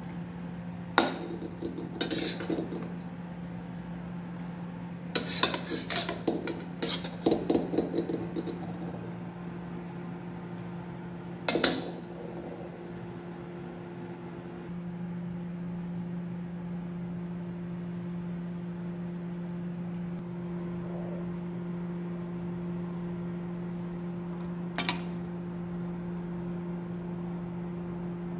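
Metal utensils clinking and scraping against a steel kadhai as cooked chicken masala is served out, in a run of sharp clinks and rattles over the first twelve seconds, with one more clink near the end. Under it runs a steady low hum that gets a little louder about halfway through.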